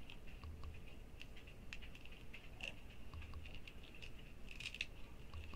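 Faint scattered light clicks and small rustles of fingers fiddling with a strap on a synthetic wig.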